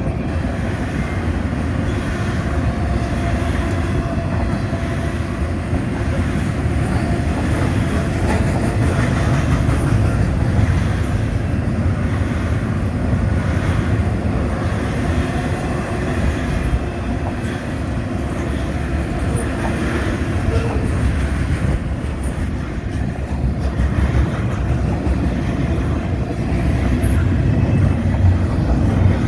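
Intermodal freight train rolling past, a steady rumble with wheel clatter on the rails.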